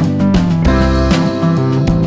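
Background music: a guitar-led instrumental track with a steady beat.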